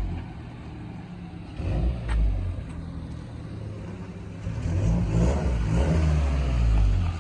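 A Mazda car's engine running as it pulls up, with a sharp click about two seconds in and the engine note rising and getting louder over the last few seconds.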